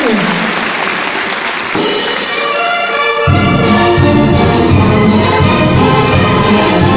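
Applause dying away, then a brass wind band strikes up a cumbia: brass chords come in about two seconds in, and the tuba and drums join a second later with a steady beat.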